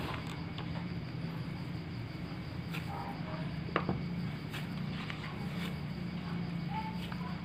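Hands squeezing and kneading a crumbly bait mix of ground instant noodles in a plastic bowl, with a few light clicks against the bowl. Under it runs a steady low hum, with faint distant voices.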